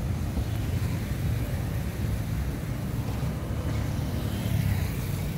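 Roadside traffic noise: motorcycles and cars passing on a city street, heard as a steady low rumble.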